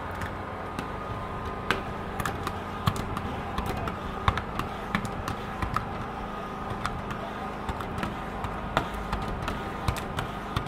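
Hard squeegee being pressed and swept left and right over wet dry-adhesive window film on a glass pane, squeezing the water out from under it: irregular taps and knocks, about one or two a second, over a steady low hum.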